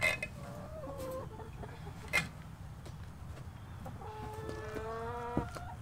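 Backyard hens clucking, with one drawn-out call over the last couple of seconds. A few light knocks are heard as the waterer is handled.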